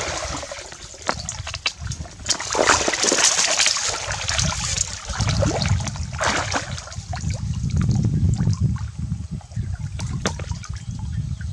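Shallow pond water splashing and sloshing as people wade through it and dip their hands in, in irregular bursts. The loudest splashing comes about two to four seconds in, and a lower churning slosh of legs moving through the water follows.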